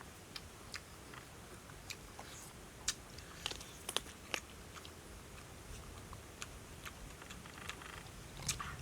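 A person biting and chewing cooked frog, with irregular sharp crunches and clicks, the loudest coming about three to four seconds in.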